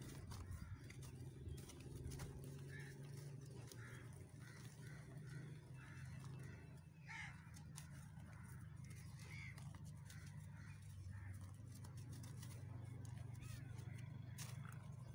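Dry, hardened white cement being broken and crumbled by hand, with faint gritty crunches and crackles. Birds call repeatedly in the background over a steady low hum.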